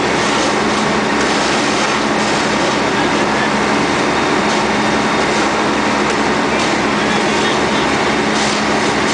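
Two high-pressure fire hose streams spraying against a suspended barrel, the water falling on pavement as a loud, steady rushing hiss with a low hum underneath.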